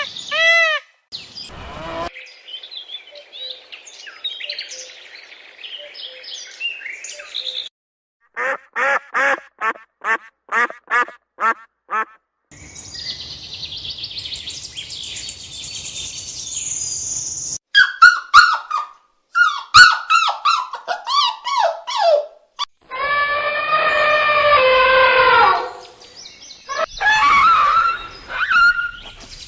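A string of different animal calls, one short clip after another with abrupt cuts between them. It includes a run of short repeated calls about two a second and a longer pulsing call near the end.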